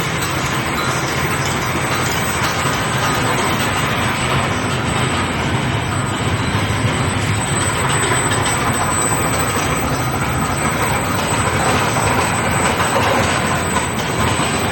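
A steel ball hot-rolling line running: a loud, steady mechanical din with dense metallic clatter and rattling.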